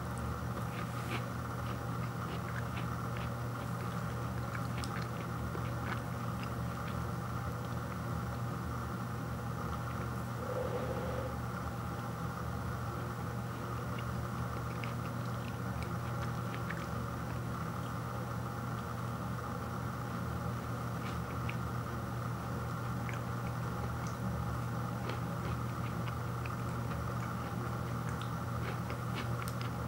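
Faint, scattered little crunches and crackles of a frosted Pop-Tart toaster pastry being broken apart and eaten, over a steady low hum.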